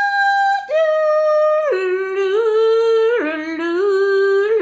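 A woman's singing voice holding long notes that step down from high to low in about four stages, a sung, drawn-out imitation of a rooster's crow in a children's animal song.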